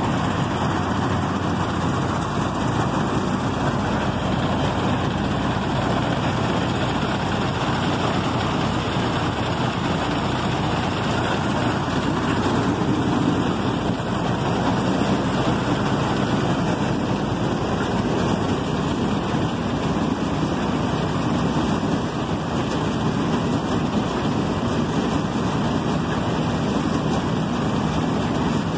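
John Deere 1170 combine harvester running steadily in place, its diesel engine driving the header with the reel and auger turning.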